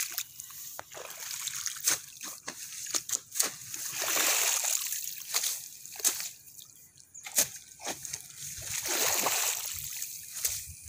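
A hoe chopping and dragging through wet mud and shallow water at the edge of a flooded rice paddy, the mud squelching and the water splashing and sloshing, with several sharp knocks as the blade strikes.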